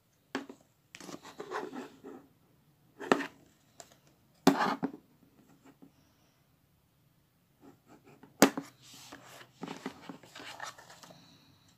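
Hands handling cosmetics on a table: four sharp clacks as plastic compacts and a cardboard box are picked up and set down, with rustling and scraping between.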